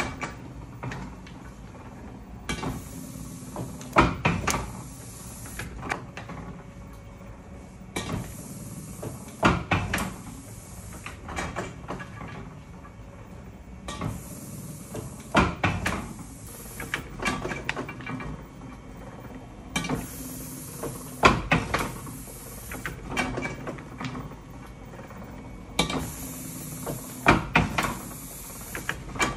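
Chandler & Price platen letterpress running through its print cycle, the mechanism clattering with a loud clack about every six seconds as the platen closes for each impression. A high hiss rises for a few seconds in each cycle.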